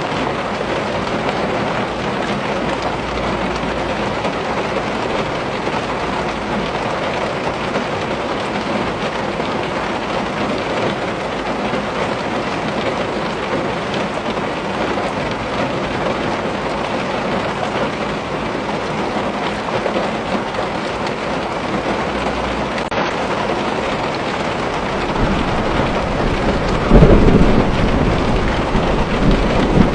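Steady rain pattering on a window. Near the end a low rumble of thunder builds up and peaks.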